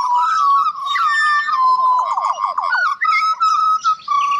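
Several butcherbirds singing together: clear, fluting whistled notes that overlap, with a run of quick falling notes about a second and a half in.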